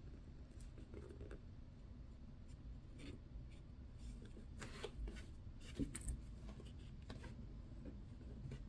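Faint taps and clicks of small watch-repair tools, such as a screwdriver, being handled and set against the watch and work surface. A few sharper clicks come about five to six seconds in.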